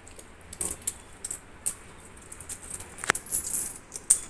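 Loose metal coins clinking and scraping on a concrete floor as they are pushed about and sorted into piles by hand: a scatter of light clinks, with a sharper click about three seconds in and another near the end.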